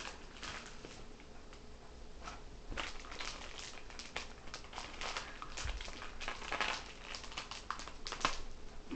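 Crinkling and rustling of small clear plastic bags holding toy parts as they are handled and set down, with scattered light taps.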